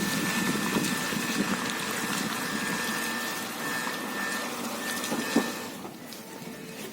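Renault Logan on the move: tyre and road noise with a thin, steady high-pitched squeal from a wheel. The squeal comes from a rusted brake dust shield bent against the brake disc. Near the end the road noise drops away.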